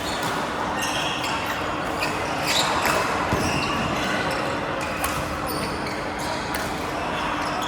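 Badminton rally: sharp racket strikes on the shuttlecock and short squeaks of shoes on the court floor, scattered through a steady hall din.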